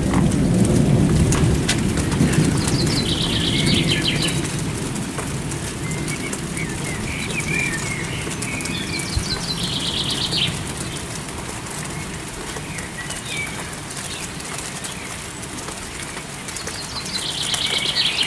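Steady rain falling, with a low rumble in the first few seconds that fades away. A songbird sings the same short, high phrase three times, about seven seconds apart.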